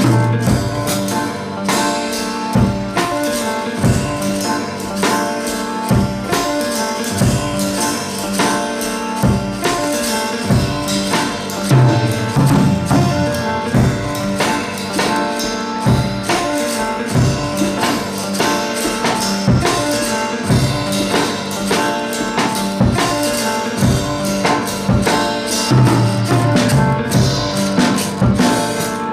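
Background pop music with a steady drum beat and tambourine.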